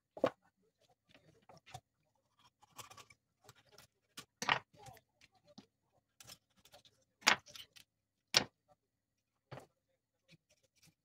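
Kitchen knife cutting up a raw chicken on a wooden cutting board: irregular knocks and clicks of the blade against the board, with quiet handling in between.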